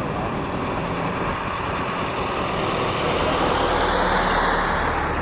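Bell 505 helicopter's rotor and turbine noise, swelling to its loudest about four seconds in and then easing slightly, with a steady low hum under it.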